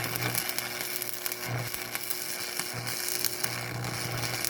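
Small plug-in Forney stick welder with its arc struck and held, crackling and sizzling steadily over a low mains-frequency buzz as a bead is run.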